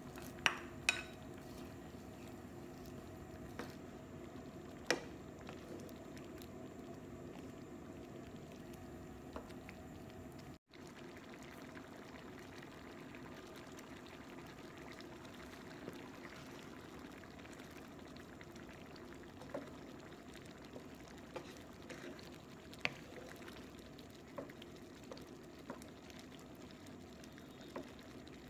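Pan of lentil soup bubbling at a simmer, with a faint steady hum underneath. A few short sharp clicks of kitchen utensils against the pan, the loudest about half a second and a second in.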